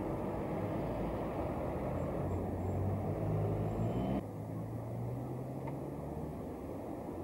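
Car engine running amid street traffic noise, with a sudden cut about four seconds in to a steadier, lower engine hum.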